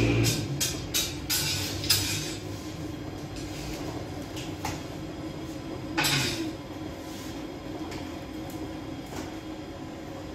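Long-handled metal peel scraping and clattering in a sangak oven's bed of hot pebbles, with several strokes in the first two seconds and a louder one about six seconds in, over a steady low hum.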